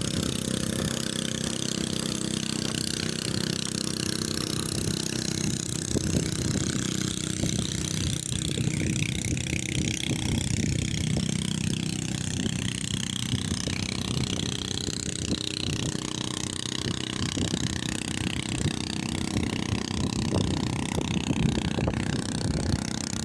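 An engine running steadily, a constant mechanical drone throughout.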